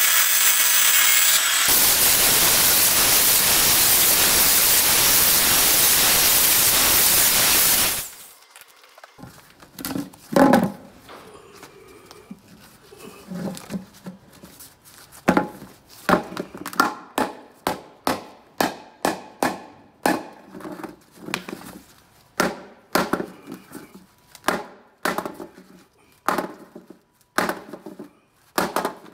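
An angle grinder with a cutting disc cuts through the cured fibreglass flange of the mould. It runs loud and steady for about eight seconds, then stops suddenly. After that comes a long, irregular run of sharp knocks on the hard fibreglass shell, a little over one a second, as the mould is worked loose.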